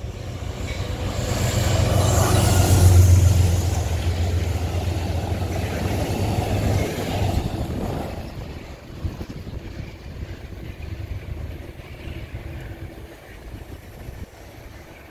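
Amtrak GE Genesis P32AC-DM diesel locomotive passing close by at the head of a passenger train, a deep engine drone with rumbling wheels, loudest about three seconds in. After about eight seconds it gives way to a fainter rumble of the train moving away.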